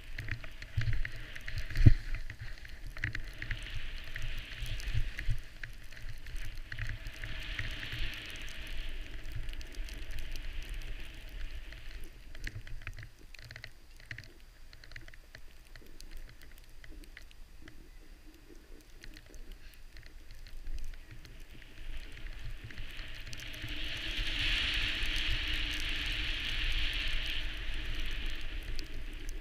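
Snow hissing under a rider sliding through powder, swelling and easing with the turns, over a low rumble on the body-worn camera. There is a sharp knock about two seconds in.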